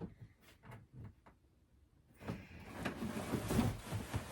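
Rummaging through a cardboard box of packed parts: a few light knocks, then from about two seconds in continuous rustling and scraping of cardboard and packaging.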